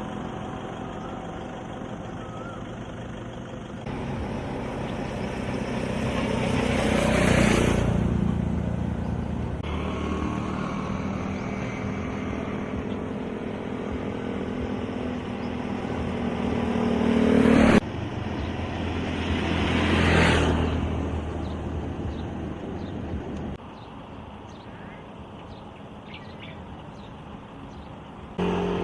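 Road traffic outdoors: vehicles passing, with two louder pass-bys that swell and fade about seven seconds in and again near twenty seconds. The sound changes abruptly several times, as if cut between takes.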